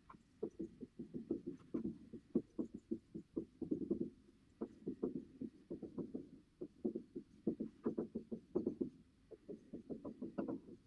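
Dry-erase marker writing on a whiteboard: a quick, irregular run of short scratchy strokes and taps as words are written out, with a few brief pauses between words.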